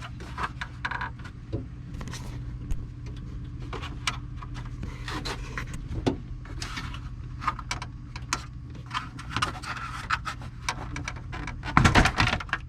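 Plastic dash trim panel in a Jeep Wrangler TJ being tugged and worked loose by hand: scattered clicks, creaks and rubbing of plastic, then a louder clatter near the end as it suddenly comes free.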